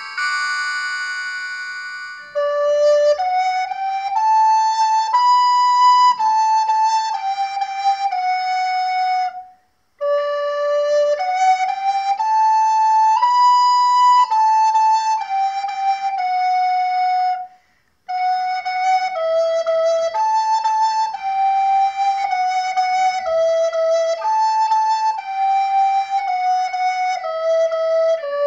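A chord on a keyboard fades away, then a recorder plays a slow Christmas melody alone. The tune comes in three phrases of about seven seconds each, with short breath breaks between them.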